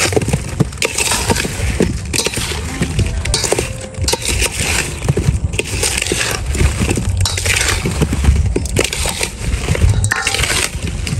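Peeled bananas being stirred and tossed with a metal spoon in a stainless steel bowl to coat them in salt and pepper seasoning: irregular scraping and clinking of the spoon against the bowl, with soft squelches of the fruit.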